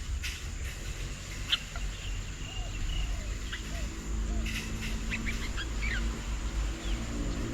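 Small birds chirping: scattered short whistled notes, busiest in the second half, with a few low arched calls about two to three seconds in. Under them run a steady high insect drone and a low rumble.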